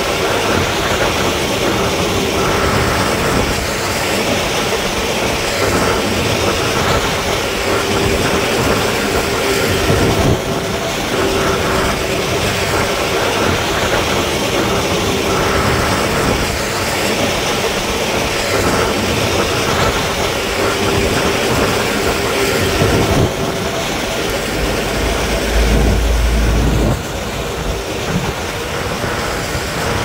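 Heavy road-construction machinery working gravel, its engines running steadily with a few held tones coming and going, and a deep low rumble for a couple of seconds near the end.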